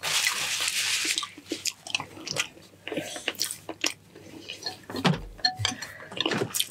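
Close-miked eating: a noisy slurp for about the first second, then wet chewing with lip smacks and small clicks.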